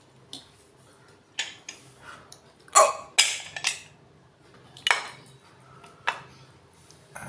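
A person hiccuping several times at uneven intervals, each a short, sharp gulp.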